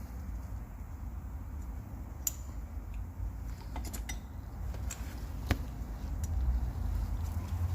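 A few light metallic clicks and clinks as steel camshaft bearing caps and their bolts are set in place on a 1.9 TDI PD cylinder head, over a low steady hum.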